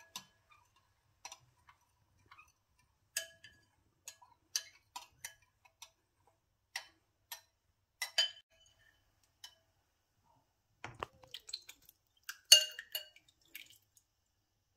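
Metal spoon stirring berries in syrup in a glass bowl, clinking lightly and irregularly against the glass. About eleven seconds in there is a duller knock, and the loudest clink comes just after it.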